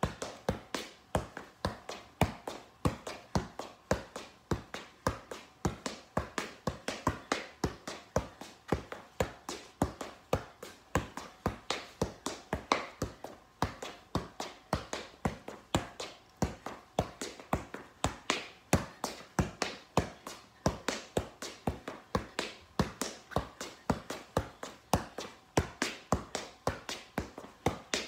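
Soccer ball being juggled keepy-uppy, tapped up again and again off the player's boots and thighs in an even, unbroken rhythm of about three touches a second.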